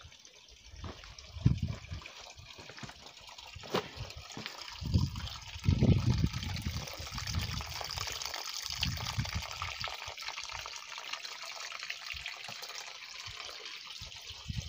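Spring water trickling out of a mossy rock crevice, a steady hiss that grows louder about four seconds in. A few dull knocks stand out in the first half.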